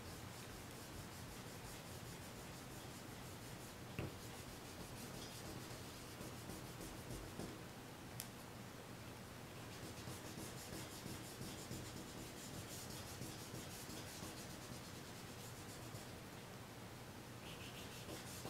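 Kneaded eraser rubbed back and forth over charcoal on drawing paper in short horizontal strokes, lifting charcoal to make highlights; faint scratchy rubbing, with a small tap about four seconds in.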